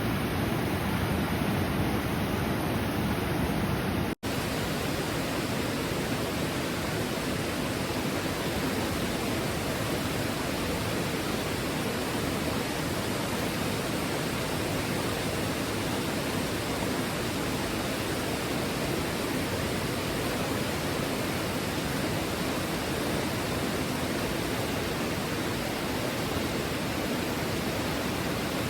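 Steady rushing of a river's flowing water, with a momentary dropout about four seconds in.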